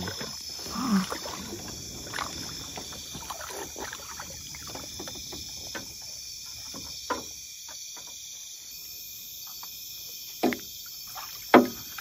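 A hooked fish splashing at the side of a small boat as it is reeled in and landed by hand, with scattered knocks and splashes, the sharpest two near the end, over a steady chorus of night insects.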